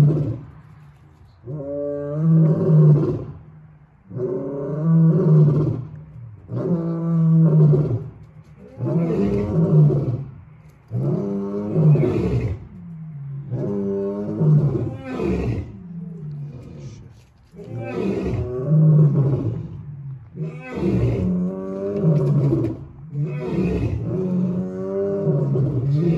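A lion roaring in a long bout of repeated deep, loud calls, each a second or so long, coming about every one and a half to two seconds.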